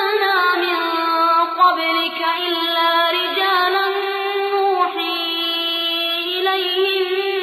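A high, clear voice chanting Quranic recitation in a drawn-out melodic style, holding long notes that slide slowly in pitch with brief breaks for breath.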